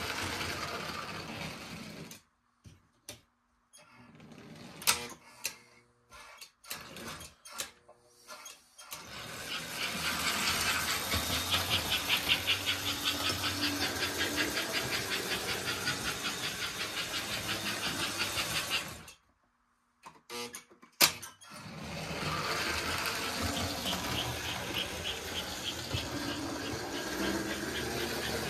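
American Flyer toy steam locomotives running on the track: a steady motor whir with fast wheel clatter. Twice the power drops out, leaving a few sharp clicks, before the running starts up again.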